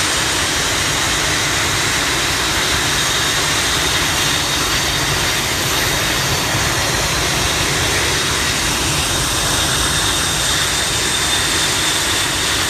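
Twin-engine F/A-18 Hornet jets taxiing close by, their turbofan engines making a loud, steady roar with a high whine above it.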